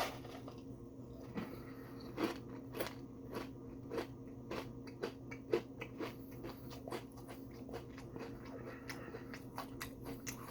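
A person chewing crispy fried fast food close to the microphone, a quick, irregular run of small crunches and mouth clicks over a steady low hum.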